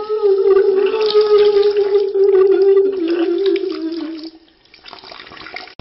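Bidet with its water jets running, the plumbing giving a steady whine: a single sustained pitched tone over the hiss of water. The whine sags a little and fades out about four seconds in, leaving only the sound of running water.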